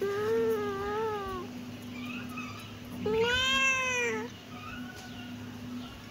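Kitten meowing: two long meows, the first wavering in pitch and the second louder, arching up and falling back, with fainter short meows between and after.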